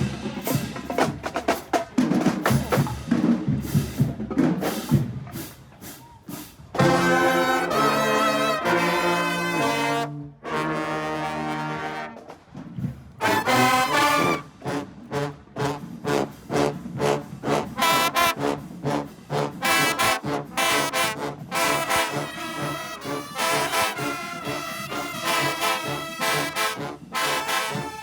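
Marching band: a few seconds of drumline hits, then the brass section comes in with long held chords, a short break, and from about halfway on a rhythmic, up-tempo brass tune over the drums.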